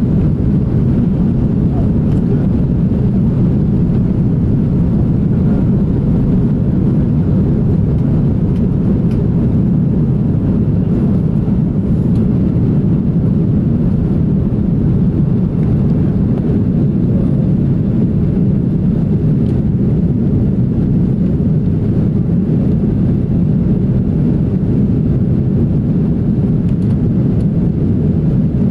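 Jet airliner cabin noise during the climb after takeoff: a steady, deep rumble of the engines and rushing air, heard from inside the passenger cabin.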